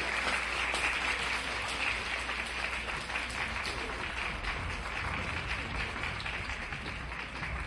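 Audience applauding steadily, with some voices in the crowd, tapering off a little near the end.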